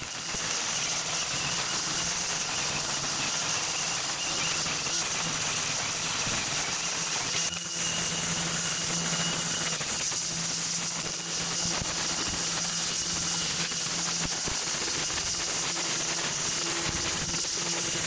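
Battery-powered string trimmer running at a steady speed, its line cutting through thick, overgrown grass.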